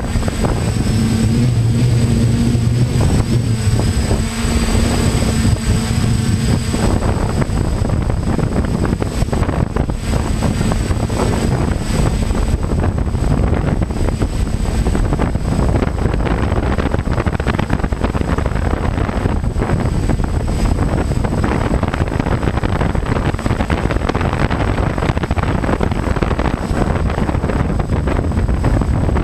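Hexacopter drone's rotors running steadily, picked up by the GoPro microphones mounted on it, with heavy wind buffeting and a thin, steady high whine. A low pitched hum stands out in the first several seconds.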